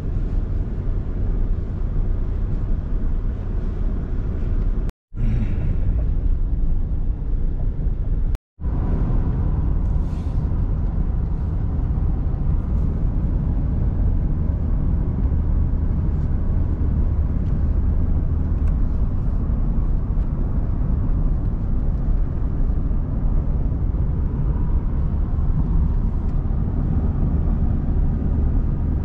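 Steady low road and engine rumble inside a moving car's cabin, cut off twice by very short silent gaps within the first ten seconds.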